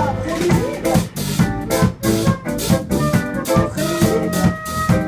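Live band music: a drum kit keeps a steady beat under electric guitar, with a few long held notes near the end.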